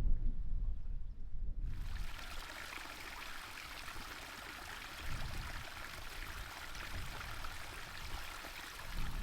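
Running water of a stream, a steady rushing hiss that cuts in suddenly about two seconds in. Before it there is only a low rumble.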